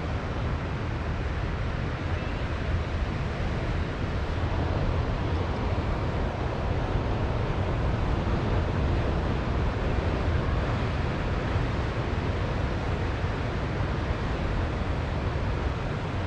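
Wind blowing across the microphone as a steady low rumble, over the wash of surf on a beach.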